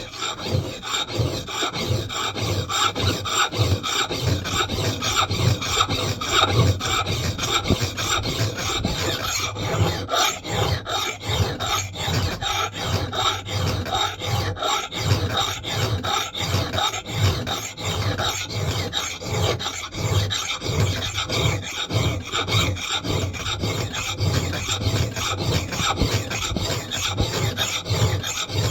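A hand file rasping over the steel bit of a Mann Edge Tool Company knot clipper axe head in rapid, evenly repeated strokes as the edge is sharpened.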